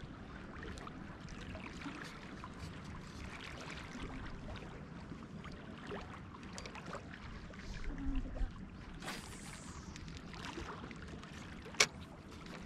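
Gentle water lapping against a rocky shoreline, with scattered small clicks and one sharp click near the end.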